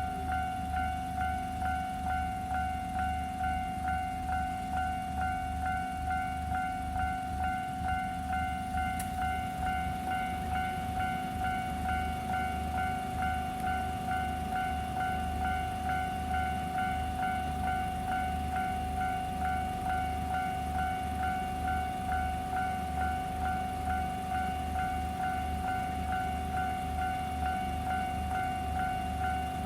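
Japanese level-crossing warning bell ringing steadily, an even electronic clang at about two strikes a second.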